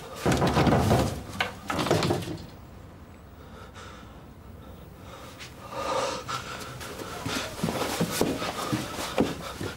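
A man breathing hard in gasps, with a few light knocks of movement near the end.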